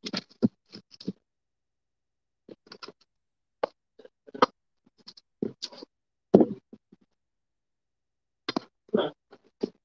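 Chopped bok choy being gathered by hand off a wooden cutting board and dropped onto a plate: an irregular series of short taps, knocks and light scrapes.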